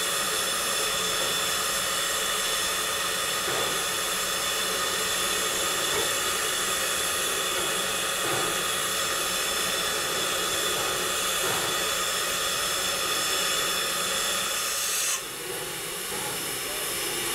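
Steam hissing steadily from a standing steam locomotive, cutting down sharply about fifteen seconds in.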